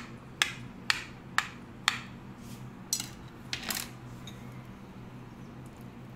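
Pointed metal utensil jabbing into a raw king fish steak to prick holes for the masala, its tip clicking sharply against the ceramic plate about twice a second, six times, before stopping about four seconds in.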